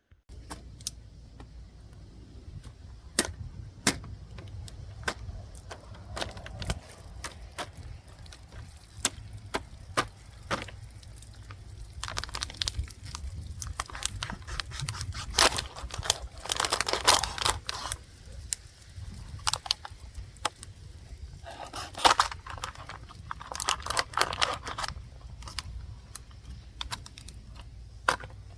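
A hawkbill folding knife cutting into a plastic bottle: scattered sharp clicks and crackles, with longer stretches of scraping and crinkling about halfway through and again a few seconds later. The blade is pretty sharp but does not cut cleanly through the bottle.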